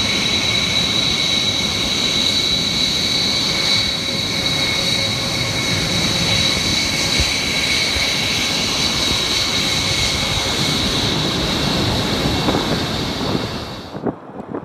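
Rockwell B-1B Lancer's General Electric F101 turbofan engines running as the bomber taxis past: a steady, loud rush with a high-pitched whine. It cuts off abruptly near the end, leaving wind noise on the microphone.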